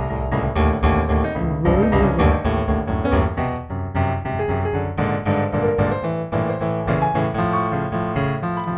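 Background music led by piano, with notes struck several times a second.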